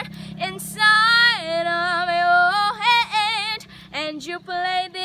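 A young girl singing a cappella, wordless: long held, wavering vowels with vibrato, then a string of short separate notes near the end.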